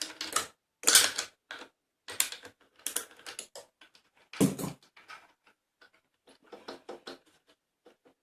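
Irregular clicks, knocks and clatter of metal parts being handled while a milled pine test piece is taken out of a drill-press compound table setup. The two loudest knocks come about a second in and again about four and a half seconds in, and the sounds grow fainter and sparser near the end.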